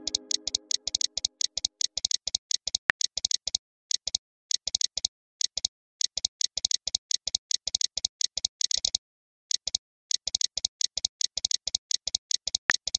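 Phone keyboard typing sound effect from a texting-story app: a rapid, uneven run of light key clicks, several a second, broken now and then by short pauses.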